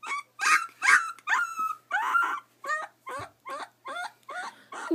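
Ten-day-old Alaskan Malamute puppy crying in a quick run of short, high-pitched cries, about three a second, growing quieter toward the end.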